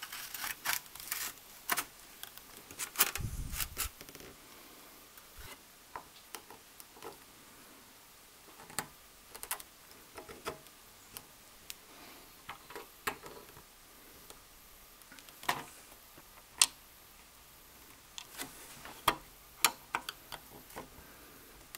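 Light clicks and taps of brass saw screws being fitted through a wooden saw handle and steel blade and turned with a small screwdriver, with handling of the handle and blade on a cloth. The clicks come irregularly, busiest in the first few seconds, with a dull bump about three seconds in.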